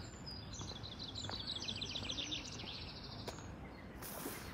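A small songbird sings a fast trill of repeated high notes lasting about two and a half seconds, over a steady low outdoor rumble, with a brief rush of hiss near the end.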